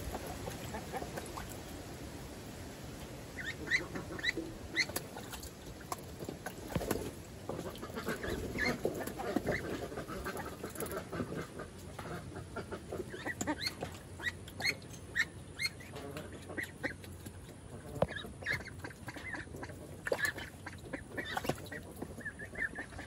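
Young ducks calling with short high peeps in scattered bursts, with water splashing in a shallow plastic tub as one duck bathes in it. Wind buffets the microphone at the start.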